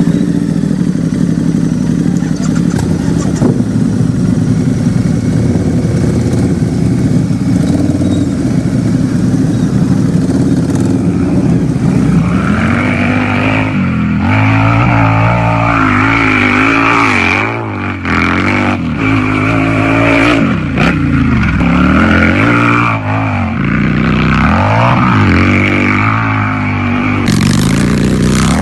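Harley-Davidson V-twin motorcycle engine idling steadily, then revved repeatedly from about twelve seconds in, its pitch rising and falling with each blip of the throttle.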